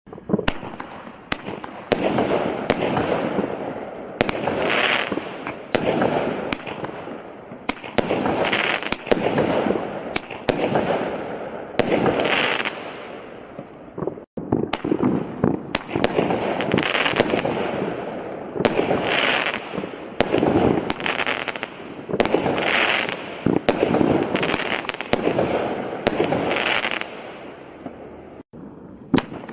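Small firework barrage cakes firing in a rapid sequence, a sharp launch shot followed by a bursting report about once a second, with a brief break near halfway.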